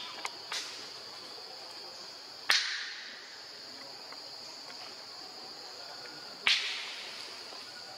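Steady high-pitched drone of insects, broken twice by a sharp loud crack, about four seconds apart, each trailing off over half a second, with a couple of faint clicks near the start.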